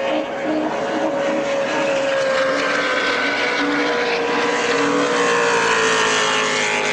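A racing powerboat's engine running at high revs as the boat passes at speed. Its pitch holds steady, then falls slowly through the second half.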